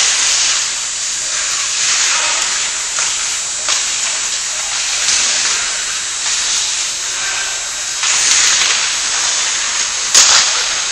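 Hockey skate blades scraping and carving the rink ice, a steady hiss that swells now and then, with a few sharp clacks.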